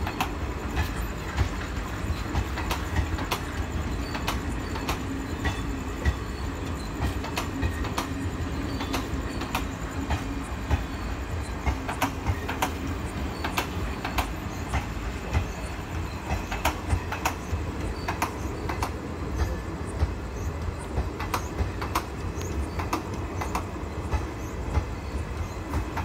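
Passenger train coaches rolling past, wheels clicking over rail joints in a quick, uneven run of clicks over a steady low rumble.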